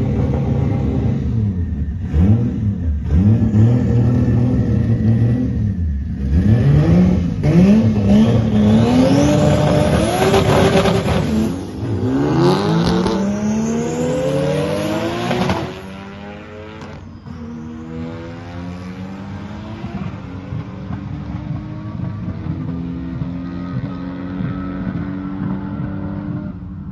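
Two drag cars, a 1JZ inline-six-powered pickup and a Honda Civic Type R, revving at the start line with the engine note bouncing up and down. About a quarter of the way in they launch, and the pitch climbs repeatedly through several upshifts. About halfway through the sound drops off and carries on fainter as the cars run away down the strip.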